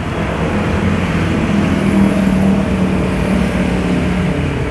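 Road traffic with a motor vehicle passing close by. Its engine is a steady drone that swells through the middle and fades near the end.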